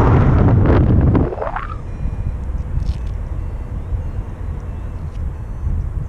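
Wind buffeting the microphone of an action camera in flight under a paraglider: a loud gusty rush in the first second or so, then a steadier low rumble.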